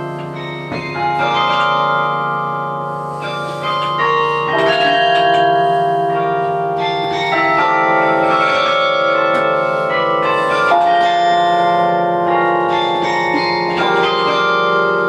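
A 47-bell Paccard carillon played from its baton keyboard: bells struck in quick runs of notes, each ringing on and overlapping the next, growing louder about four seconds in.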